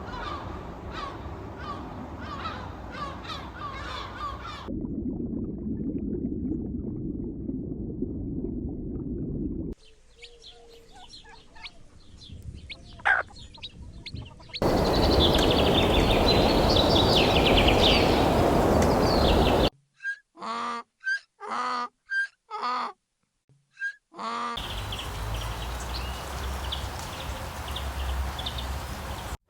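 A string of different animal sound clips, each lasting about five seconds and cut abruptly to the next; one of them is a run of short separate calls with gaps of silence between.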